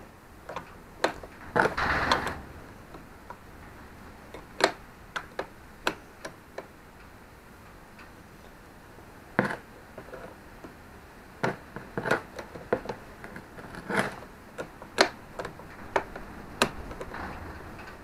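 Irregular sharp metallic clicks and clinks of a 22 mm spanner working on the back nut of a handlebar-mounted push-button switch as the nut is tightened, with a longer scraping rustle about two seconds in.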